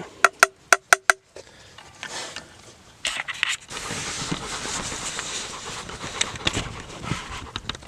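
Four quick ringing metal clinks, a utensil tapped against a cooking pot, then a dog panting close by.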